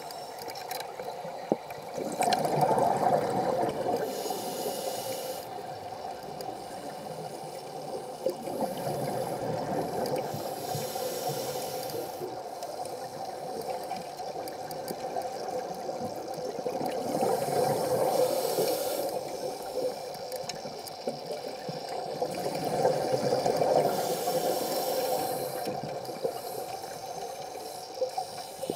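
Underwater sound of a scuba diver breathing through a regulator. Each exhaled burst of bubbles swells and fades, about four times, every six or seven seconds, and a few sharp clicks fall in between.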